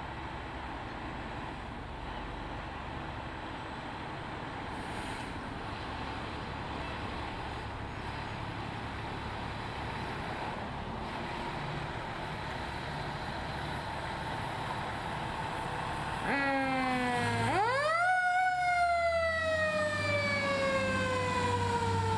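Fire engine's engine running with a steady low rumble as it pulls out. About 16 seconds in, its siren starts: it winds up quickly to a high pitch, then falls slowly in one long wail.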